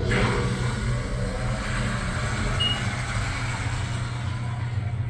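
Ride inside a One World Trade Center express elevator cab climbing at speed: a steady low hum with a loud rushing noise on top that starts suddenly just before.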